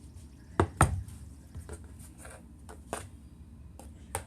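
A spoon knocking and tapping against a dish while scooping out pie filling: two sharp knocks a little under a second in, then several lighter taps.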